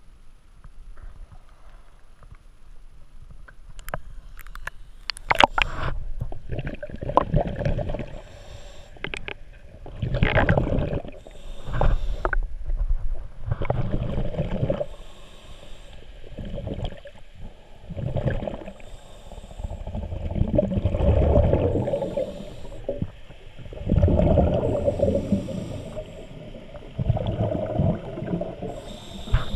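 Scuba diver breathing through a regulator underwater: a hiss on each inhale and a gush of exhaust bubbles on each exhale, repeating every few seconds. It begins a few seconds in with splashing as the diver goes under.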